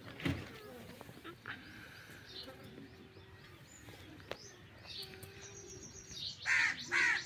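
Small birds chirping, with two loud, harsh calls near the end.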